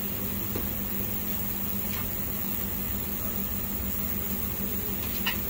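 A steady machine hum with a constant low tone, and a couple of faint clicks, one about two seconds in and one near the end.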